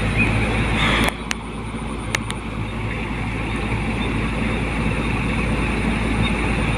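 Rice combine harvester running steadily. About a second in the sound drops off suddenly, a few sharp clicks follow, and the level then slowly builds back up.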